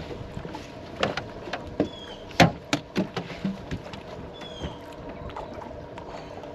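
A landed bass and the landing net knocking and thumping against the deck of a bass boat as the fish is brought aboard and handled: a quick run of sharp knocks, the loudest about two and a half seconds in, then it settles.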